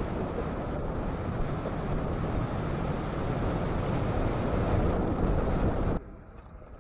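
Heavy wind rushing over the microphone of a motorcycle travelling at speed: a dense, steady roar with no clear engine note. It cuts off abruptly near the end, giving way to much quieter roadside sound.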